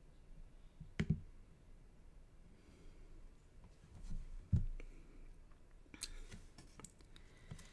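Scattered light taps and clicks of a hand handling small items on a craft desk: a sharp tap about a second in, a dull knock a little past halfway, and a quick run of small clicks near the end.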